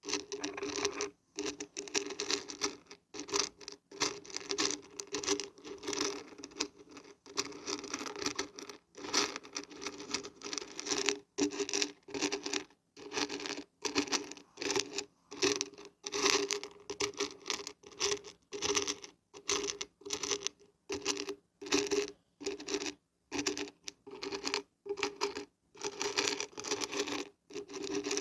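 Dried beans and dried barberries being shaken, a dense pattering rattle that comes in repeated bursts of about a second with short pauses between.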